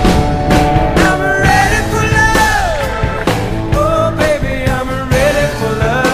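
Rock music with a steady drum beat and a pitched lead line that slides and bends.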